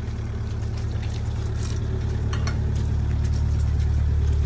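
An engine running steadily with a deep drone, growing gradually louder, with a few faint clicks over it.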